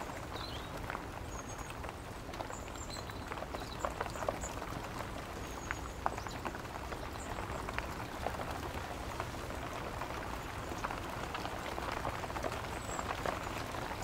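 Woodland ambience: a steady soft hiss with a scattered patter of light drops ticking throughout, and a few brief high, thin chirps from small birds.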